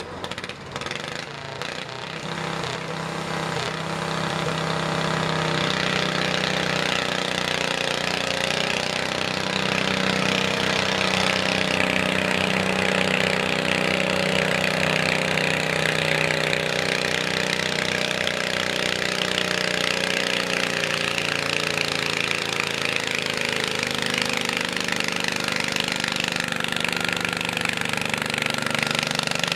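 Stock-class pulling garden tractor's engine running hard under load as it drags a weight-transfer sled, with a rapid rattling beat. It gets louder over the first six seconds or so, then holds steady.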